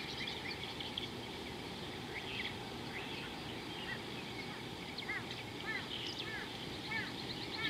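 Several birds chirping over a steady low background hiss. From about five seconds in, one bird repeats short arching notes roughly twice a second.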